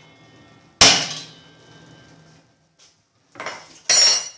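A hammer strikes once, about a second in, on a short screw used as a punch against a washing machine part, with a ringing metallic clang. Near the end come two brief bursts of metal clinking and clattering.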